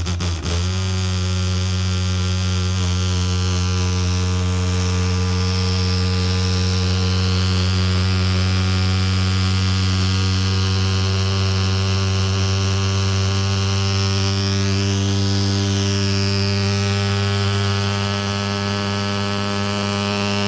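Swingfog SN 50 thermal fogging machine's pulse-jet engine catching right after hand pumping and then running with a steady, loud, even buzzing drone.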